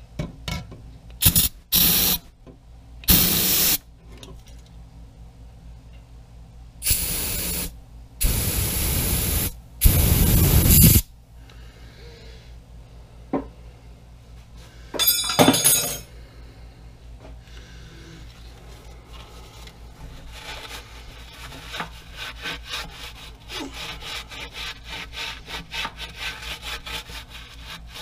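Grime being cleaned off a Pratt & Whitney lathe: several loud hissing bursts of a second or so in the first half, then quick rhythmic scrubbing or scraping strokes that grow louder toward the end.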